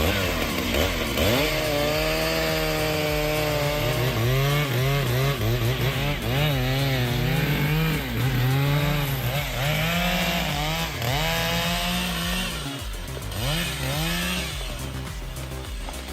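Chainsaw revving while cutting, its engine pitch rising and falling again and again as the chain bites and frees in the wood.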